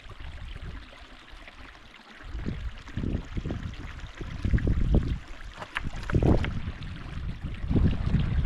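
Small stream trickling over stones as a water bottle is dipped and filled in it, with gusts of wind rumbling on the microphone from about two seconds in and a few small clicks partway through.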